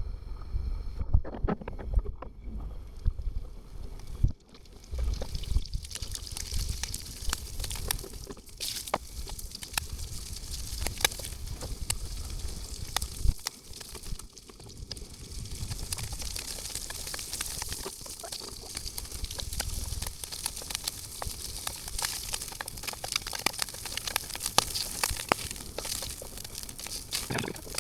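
Squid rings frying in hot oil, a continuous sizzle with many small pops and crackles. A low wind rumble on the microphone runs underneath.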